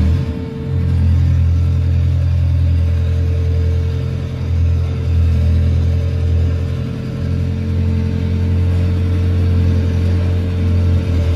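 Heavy recycling machinery running: the material handler's grapple and the cable shredder it feeds make a steady low engine drone with a constant mid-pitched whine, dipping briefly a few times.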